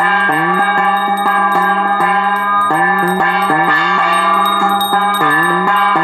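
Bells ringing in a rapid, steady rhythm, several strikes a second, their tones ringing on between strikes, along with music.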